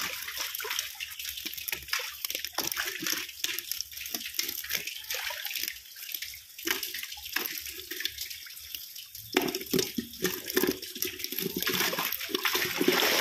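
Water splashing and dripping around live fish handled in a plastic basket, with many short splashes over a steady watery hiss. About nine seconds in the splashing grows louder and fuller as the basket is dipped into the pond water.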